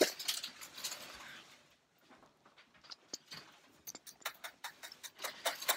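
A sharp click right at the start, then about a second and a half of soft rustling, followed by scattered faint clicks and taps.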